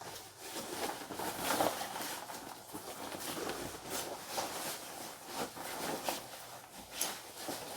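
Irregular rustling, tapping and knocking of clothing and small items being handled close by, as a coat and gloves are put on.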